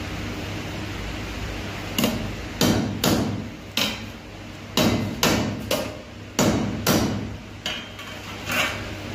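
Hand hammer striking the riveted hub of a pedestal fan's metal blade assembly. About a dozen sharp, irregular metallic blows begin about two seconds in, each with a short ring.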